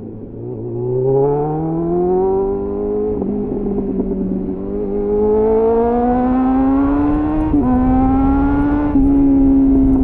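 2001 Suzuki GSF 600 Bandit's inline-four engine through a clone SC-Project CR-T exhaust with a home-made dB killer, accelerating with the revs climbing. It shifts up about three seconds in and again about seven and a half seconds in, then eases off slightly near the end.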